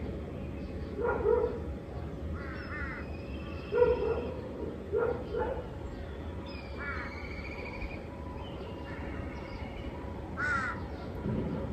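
Birds calling outdoors: a series of short caws, the loudest about four seconds in, with higher chirps and whistles of smaller birds between them.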